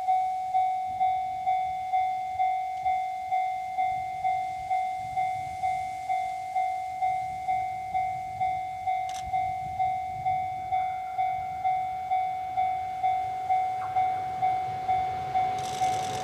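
Railway level-crossing alarm dinging steadily, about two strikes a second, while an EF510 electric locomotive hauling freight wagons approaches; the train's rumble grows near the end.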